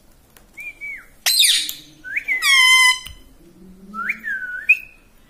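Pet ringneck parrot whistling and calling: a short falling whistle, a harsh squawk, a longer, louder held whistle, then two shorter rising whistles near the end.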